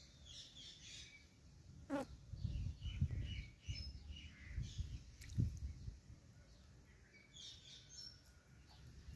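Indian ringneck parrot chirping in clusters of short, high notes, with one quick note sliding steeply down in pitch about two seconds in. Low rumbling noise runs through the middle stretch.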